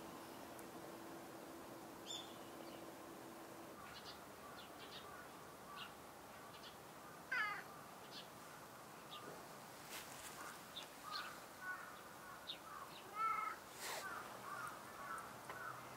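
Faint short animal calls: a few drawn-out cries and a run of quick chirps in the second half, over quiet outdoor ambience. A steady low hum stops about four seconds in, and two sharp clicks come in the second half.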